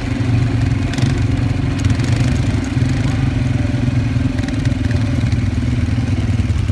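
Quad bike (ATV) engines running steadily at low speed as the group rides over sand, a continuous even drone with no revving.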